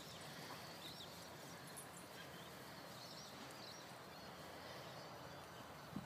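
Faint outdoor background with a few faint high chirps scattered through and a single soft tick near the end.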